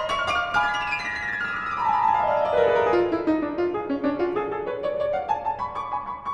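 Instrumental music: a fast cascade of single notes sweeps down from high to low pitch, then climbs back up near the end.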